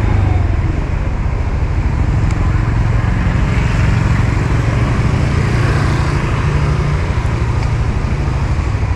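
Honda Vision scooter's small single-cylinder engine running while riding through city traffic, with a steady low rumble of engine, road and wind noise.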